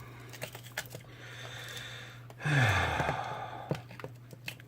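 A few faint clicks of handling, then about two and a half seconds in a long, breathy sigh that falls in pitch, over a low steady hum.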